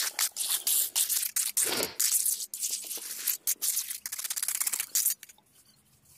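Mason's trowel scraping and spreading wet cement-and-gravel concrete, a rapid run of gritty scrapes that stops about five seconds in.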